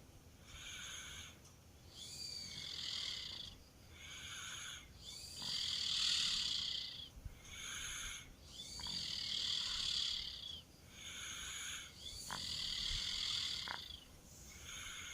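A two-year-old child snoring in deep sleep: steady, rhythmic breaths in and out, each with a high, hissy snore. The louder breaths come about every three seconds.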